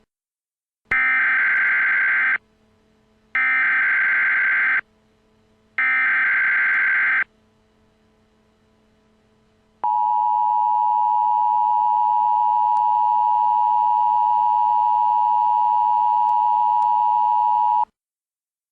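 Emergency Alert System tones: three short bursts of warbling digital SAME header data, each about a second and a half long with a second's gap between them, then the two-tone attention signal, a steady dual tone held for about eight seconds and cut off sharply. The sequence marks the start of an emergency alert broadcast.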